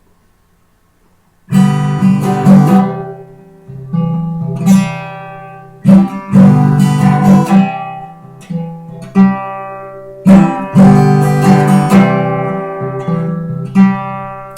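Acoustic guitar strummed chords, starting about a second and a half in. Each strum rings out and fades before the next.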